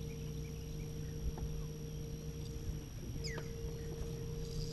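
Steady low electric hum of a bow-mounted trolling motor, which cuts out briefly about three seconds in and then resumes. A few faint bird chirps sound over it.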